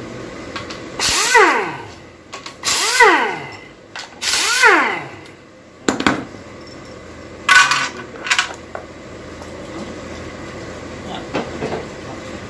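A handheld power tool run in three short bursts about a second and a half apart, its pitch falling in each as it winds down, then a brief noisy burst a few seconds later.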